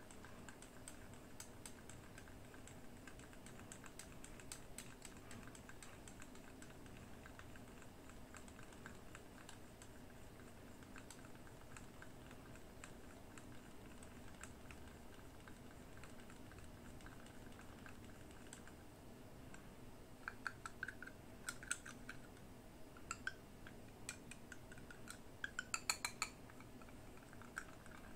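Faint clicks and light taps from a small plastic paint jar being handled, its lid worked and unscrewed. The clicks grow louder and sharper over the last several seconds.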